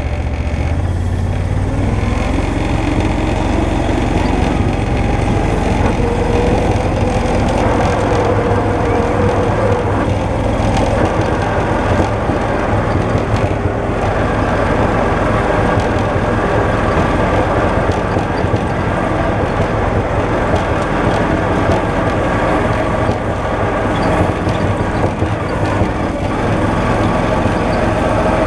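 Gator utility vehicle's engine pulling away from idle about a second in, rising in pitch, then running steadily as it tows sleds across snow.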